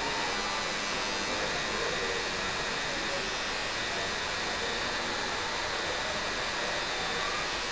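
Coil tattoo machine buzzing steadily as its needle works into skin.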